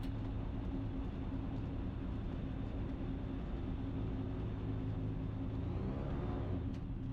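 Ikarus C42 microlight's engine running steadily at taxi power, with a faint click at the start and another near the end.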